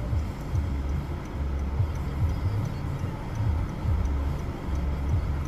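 A car on the move, heard as an uneven low rumble, with wind buffeting the microphone.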